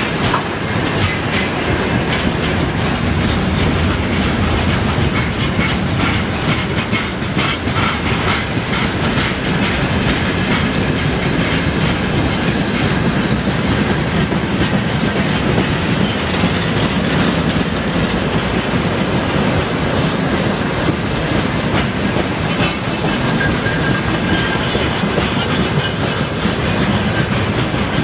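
Freight train wagons (tank cars, open gondolas and container flats) rolling steadily past close by: a continuous rumble with the wheels clacking over the rail joints.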